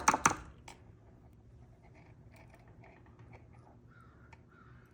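Small metal clicks from a tool being worked in an ignition lock cylinder to free a pin: a quick run of sharp clicks at the start and one more just under a second in, then only faint scattered ticks.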